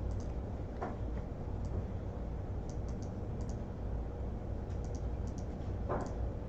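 Scattered light clicks, like keys being tapped, over a steady low hum, with a soft rustle about a second in and another near the end.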